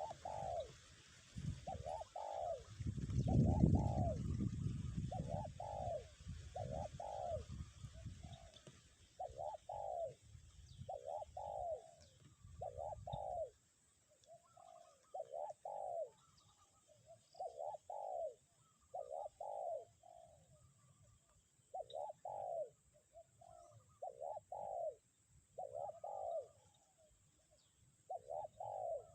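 Spotted dove (tekukur) cooing over and over in a steady series of short coos, its "kuk" call. A low wind rumble on the microphone runs under the first half and stops about halfway through.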